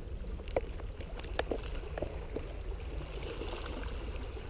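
Sea water lapping and gurgling against breakwater rocks over a low steady rumble, with a few soft irregular ticks.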